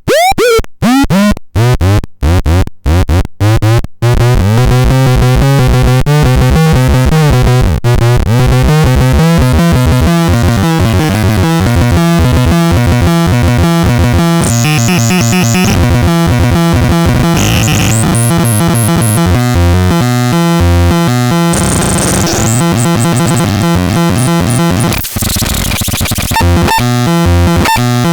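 Harsh, chaotic electronic synthesizer noise from the Excrementon 320. It starts as choppy stuttering bursts, about two a second, for the first four seconds. Then it becomes a loud, continuous wall of sound whose pitches keep stepping and shifting, with high chirps coming and going.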